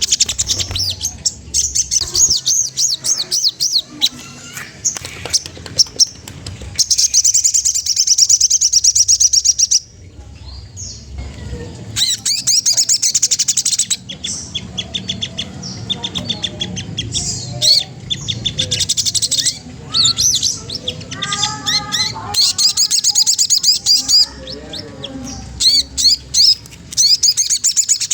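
Sogon trotol songbird calling in repeated bursts of rapid, high chattering trills, with lower warbled phrases in between during the second half.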